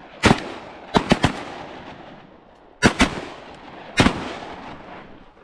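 Several duck hunters' shotguns firing a volley: about seven shots in quick, uneven succession, some nearly on top of each other, each followed by a trailing echo.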